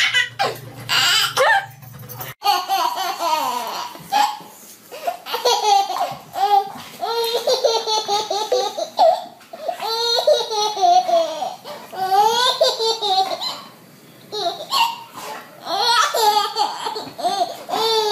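A baby laughing in repeated fits of giggles, with an adult laughing along.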